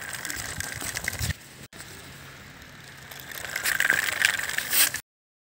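Small homemade toy car running on its electric motor, with a steady high whine over the rattle and scrape of its small wheels on rough ground. It grows louder as the car passes close near the end, then cuts off suddenly.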